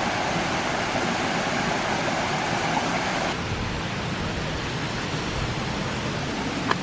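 Steady rushing of a stream or small falls beside the trail. It abruptly turns duller and a little quieter about halfway through, and there is a single short click near the end.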